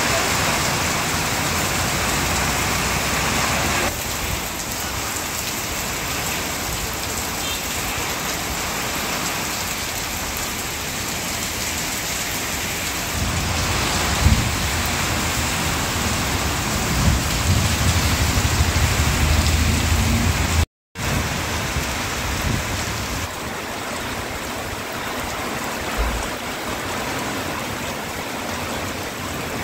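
Heavy rain pouring steadily onto wet streets, a continuous hiss of downpour. A low rumble rises under the rain partway through.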